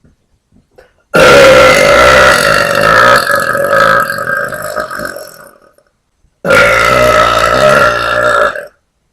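A woman's two long, very loud deliberate burps, made by swallowing air. The first lasts about four seconds and fades out; after a short pause the second lasts about two seconds and cuts off sharply.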